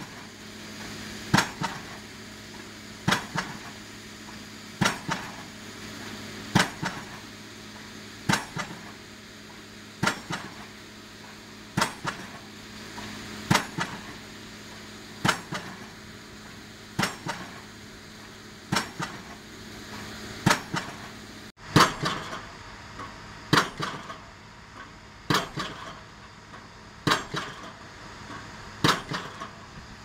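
A 7-tonne hydraulic pile-driving hammer striking a 500 mm PHC prestressed concrete pile, a heavy metallic blow about every 1.7 seconds, each with a short ringing tail, over a steady low engine hum.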